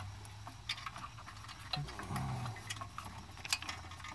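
Scattered light clicks and taps of metal parts and wiring connectors being handled in an engine bay while a loosened cylinder head is worked free, over a steady low hum.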